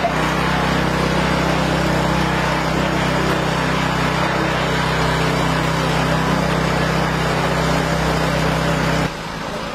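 Heavy vehicle engine running steadily at close range, with an even low hum; it cuts off suddenly about nine seconds in.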